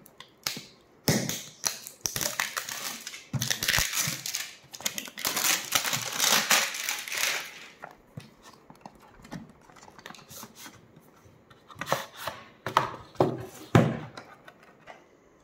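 Seal and packaging on a cardboard camera box being torn and crinkled, in dense rustling for several seconds. A few sharp taps and knocks follow near the end as the box is handled and opened.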